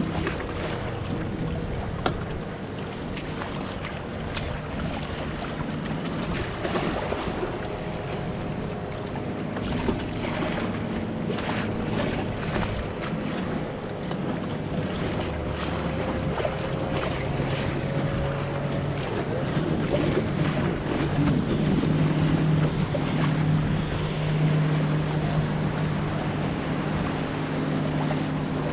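Outboard motors of passing bass boats running as a steady low drone that grows louder over the second half, over wind on the microphone and choppy water slapping around the kayak.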